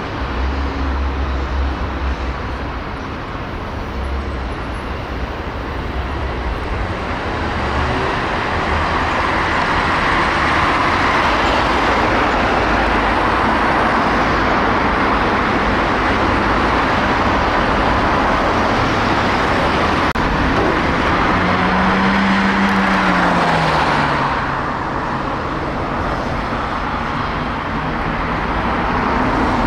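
Road traffic: vehicle engines and tyre noise, swelling to a steady louder stretch through the middle and easing off near the end.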